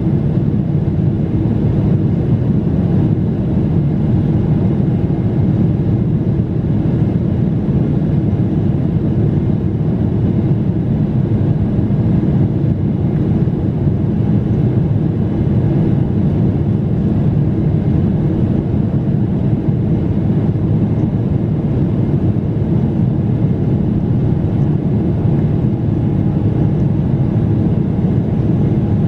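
Steady engine drone and rushing air inside the cabin of a Boeing 777-300ER airliner, low and unchanging.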